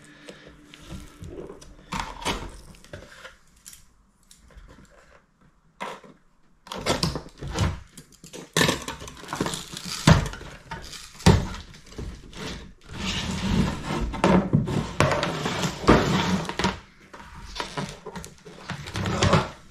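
Clattering, knocks and rustling as the plastic casing and tape are pulled off a lithium-ion e-bike battery pack and the bare cell block is handled. Quiet at first, busier in the second half with several sharp knocks.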